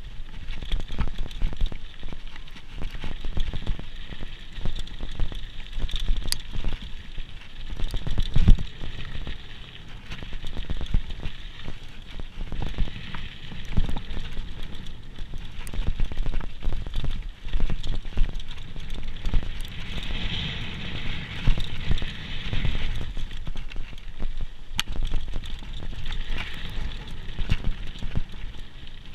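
Downhill mountain bike riding over a rough trail, picked up close through a GoPro camera's microphone: constant crunching and rattling of tyres and bike over gravel and rocks, with irregular knocks and thumps from bumps, the hardest about eight seconds in.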